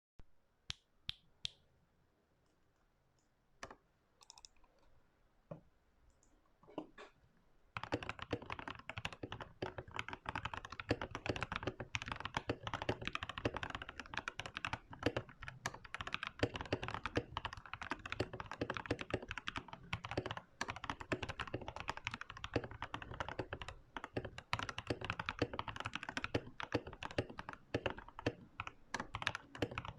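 Mechanical keyboard with Feker blue switches and foam, tempest and bandaid mods being typed on. There are a few separate keystrokes at first, then fast continuous typing from about eight seconds in.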